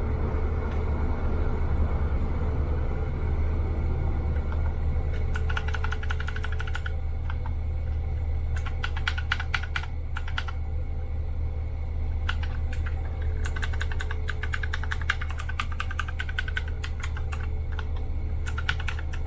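Keys of a Magic-Refiner MK11 mechanical keyboard being typed in several quick bursts of clicks, starting about five seconds in, over a steady low hum.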